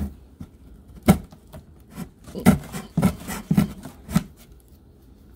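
A pointed blade cutting and scraping along the packing-tape seam of a cardboard box: a series of about six sharp, irregular rasping strokes with fainter scraping between them. The strokes stop a little after four seconds in.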